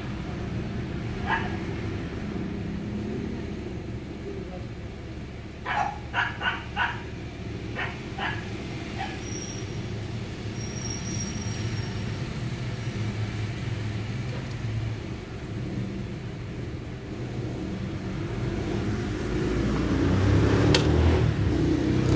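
Honda City's 1.3-litre i-VTEC four-cylinder engine idling steadily after a cold start, heard from inside the cabin, while a dog barks several times in the background, four quick barks about six seconds in. Near the end the engine sound grows louder as the recording moves outside toward the exhaust.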